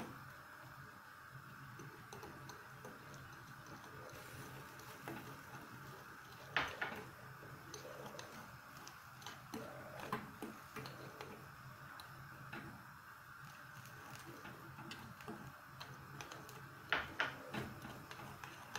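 A spoon stirring cocoa, sugar and cream in a glass bowl over a double boiler, with light ticks of the spoon against the glass. Two sharper knocks come about six and a half seconds in and near the end, over a faint steady hum.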